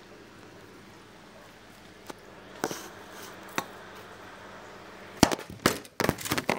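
Kitchen handling noises over a faint steady hum: a few light clicks and a clink, then a quick run of loud knocks and rubbing near the end as the phone is picked up and moved.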